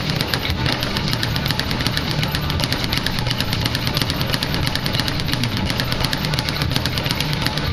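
Speed bag being worked nonstop: a fast, steady rattle of punches and rebounds against the platform, many hits a second without a break.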